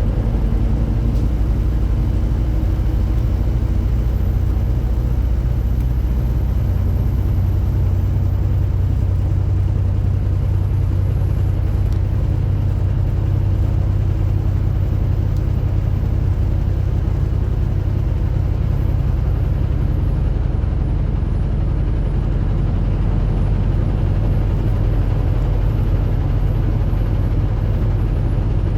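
Heavy truck's engine running steadily under road noise, a loud, even low drone.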